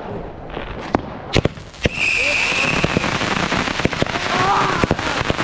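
Fireworks being set off: a few sharp, separate bangs, then from about two seconds in a loud, continuous crackle and hiss of sparks with a brief high whistle.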